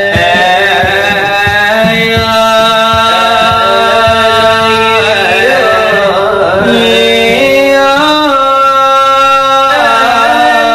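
Selawat dulang, a Minangkabau devotional chant: two male voices singing long, ornamented notes that slide between pitches, accompanied by hand beats on brass trays (dulang). The tray beats are quick over the first few seconds, then mostly stop while the singing continues.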